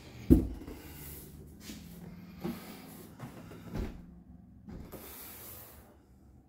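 An interior door being handled: a sharp thump about a third of a second in, then a few softer knocks and a light rustling.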